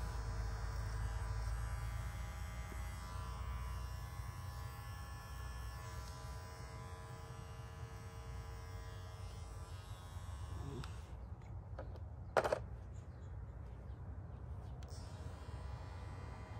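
Cordless electric hair clipper running with a steady buzzing hum as it trims hair at the neckline. The hum fades about eleven seconds in, and a short sharp click follows a second or so later.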